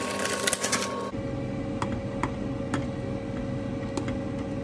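A plastic instant-noodle packet crinkles for about a second, then stops abruptly. A steady low hum follows, with a few light clicks of a spoon against the pan as it is stirred.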